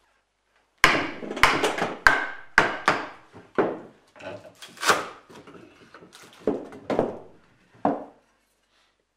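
A larch block being split into shingles with a shingle iron (froe): a series of sharp wooden knocks and cracking as the blade is driven in and levered through the wood. About a dozen knocks come quickly at first, starting about a second in, then more spaced out.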